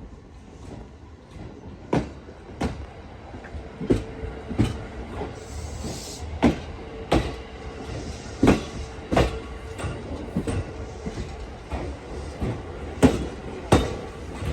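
A train rolling slowly past, its wheels knocking over the rail joints in pairs of clacks, one pair for each bogie, over a steady rumble with a faint tone. The clacks come louder as it draws nearer.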